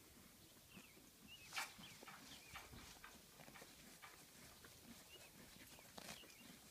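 Near silence: a faint background of short, high chirps, with two sharp knocks, one about a second and a half in and one near the end.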